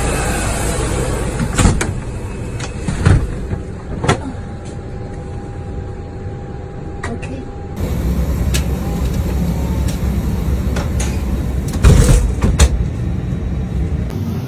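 Steady low rumble of an airliner cabin at the gate, with several sharp knocks and thuds, the loudest about twelve seconds in.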